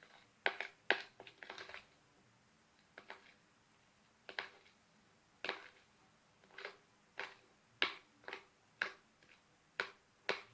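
A spoon stirring a sticky mixture of melted glue stick and contact solution in a mixing bowl: about a dozen short, irregular clicks and squelches.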